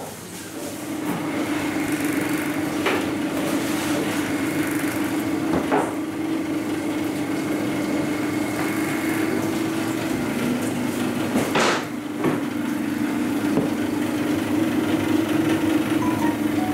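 Bagel-forming machine running with a steady motor hum, a few sharp knocks over it, the loudest about two-thirds of the way through.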